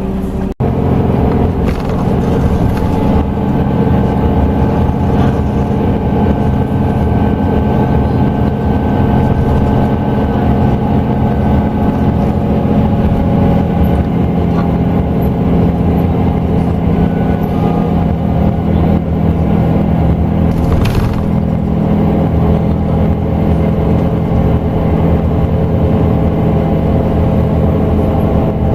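Scania K380EB coach's diesel engine running steadily under way, heard from inside the passenger cabin, with a faint whine for a few seconds near the start and a short hiss about three-quarters of the way through.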